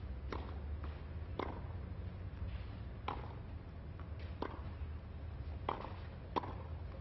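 Tennis rally on a clay court: sharp racket-on-ball hits, about one every second to second and a half, over a low steady hum.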